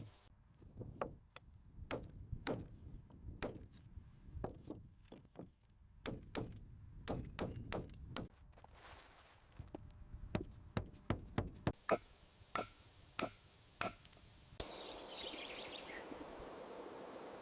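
Repeated irregular knocks and chops of hand tools striking timber, coming faster, about two a second, toward the end. About fifteen seconds in they stop and a steady forest ambience with birdsong takes over.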